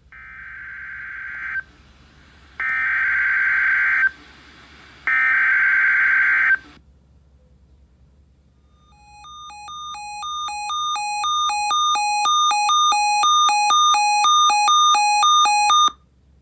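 Emergency Alert System SAME header on NOAA Weather Radio: three buzzing bursts of digital data tones, each about a second and a half long, marking the start of a new alert. A few seconds later an electronic two-tone alarm alternates between two pitches about twice a second, growing louder for a few seconds, then cuts off abruptly.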